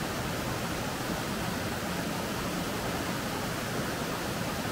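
Small waterfall spilling over stepped rock ledges: a steady rush of falling water.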